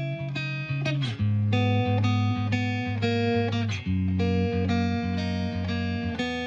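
Background music led by a plucked guitar, playing a steady rhythmic pattern of notes.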